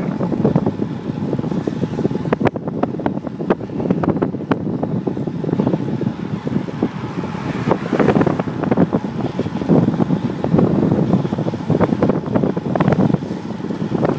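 Wind buffeting the microphone of a camera moving along a road: a steady low rumble shot through with irregular crackles and flaps.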